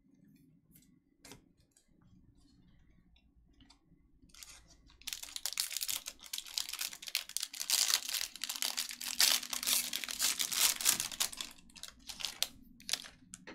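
Foil trading-card pack crinkling as it is handled and torn open, a dense crackle lasting several seconds from about five seconds in. A few light clicks come before and after.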